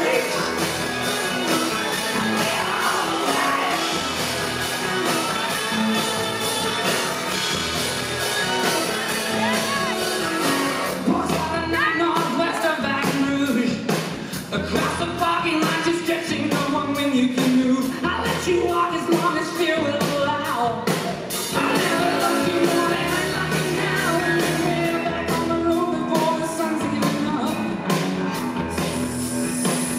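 Live rock band playing a song: a sung lead vocal over electric guitar and drums.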